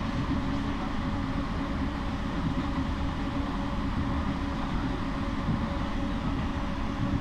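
Steady running rumble of a moving passenger train, heard from inside an air-conditioned carriage.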